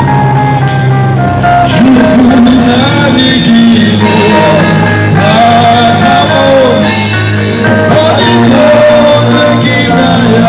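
Loud live music: a band playing, with a melody line of long, bending notes over sustained low bass tones.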